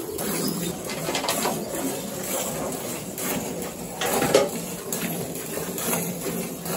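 Milk squirting in repeated jets into a metal pail as a cow is milked by hand, with a louder knock about four seconds in.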